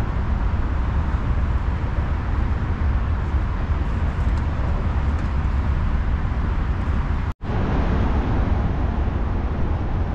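Steady road traffic noise from the highway bridges overhead, a continuous low rumble with hiss. It cuts out for a moment about seven seconds in.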